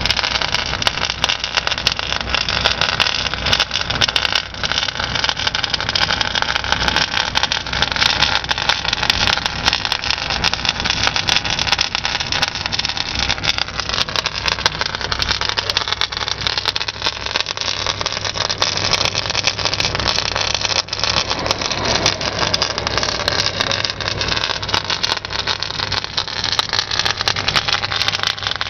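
Portable EDM broken-bolt remover running steadily: a continuous whirring, hissing machine noise with a low steady hum and a fine crackle of clicks throughout.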